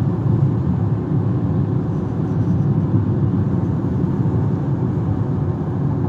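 Haval Jolion being driven at speed, heard from inside the cabin: a steady low rumble of tyre and road noise with the engine underneath.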